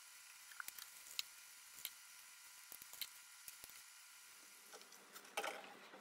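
Faint, scattered clicks and taps of a kitchen range hood's metal panels being handled and wiped during cleaning, with a short louder clatter about five and a half seconds in.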